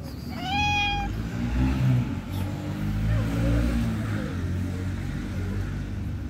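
Young tabby cat gives one clear meow, rising then held, about half a second in. Behind it a low engine rumble runs for several seconds and is the loudest thing.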